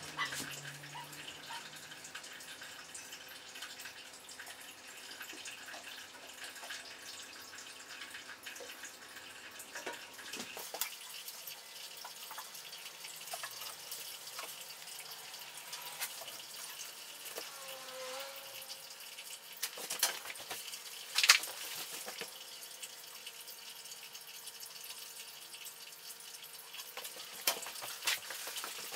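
Faint dripping and trickling of water in a small glass aquarium, over a steady hiss, with scattered small clicks and one sharper click about two-thirds of the way through.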